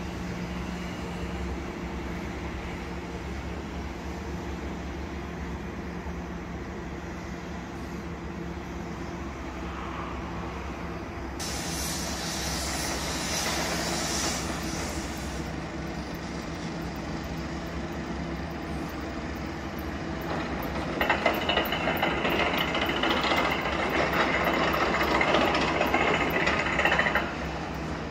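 City background noise at night: a steady low hum, with a hiss for about four seconds some eleven seconds in, and a louder rushing noise from about twenty-one seconds that cuts off sharply six seconds later.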